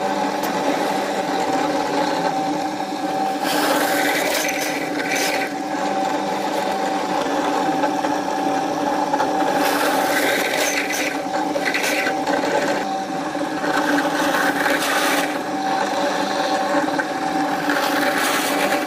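Benchtop drill press running with a steady motor hum, its bit boring into a wooden board in several short bursts of rasping cutting noise.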